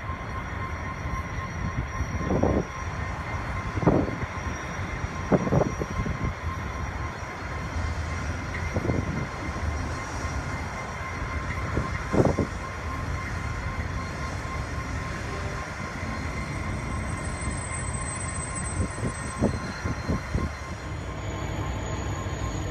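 Diesel freight locomotive rolling slowly over pointwork, its engine rumbling steadily under a thin steady whine. Heavy clunks come about a second and a half apart at first and then more sparsely, as the wheels cross rail joints and points.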